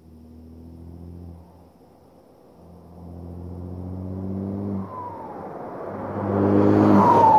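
Straight-piped 3.0 TDI V6 diesel car accelerating toward the microphone in three pulls, each rising in pitch and then dropping off, getting louder each time. Near the end it passes close by at its loudest, with a high whistle that falls in pitch as it goes past.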